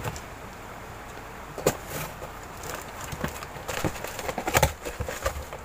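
Cardboard parcel boxes being handled and shifted: scattered knocks and scuffs of cardboard, one a little under two seconds in and a cluster around four to five seconds in.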